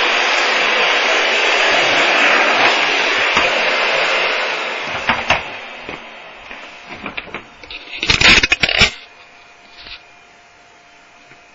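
Miele vacuum cleaner running while its floor head, with the front brush strip trimmed off, is pushed back and forth over debris. About five seconds in the motor is switched off and winds down, followed by a few clicks and a brief loud clatter of knocks.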